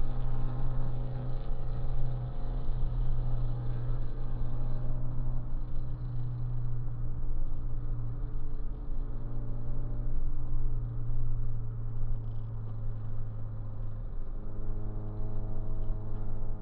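Car engine and road noise heard from inside the cabin at highway speed, a steady low engine note whose pitch steps up about 14 seconds in.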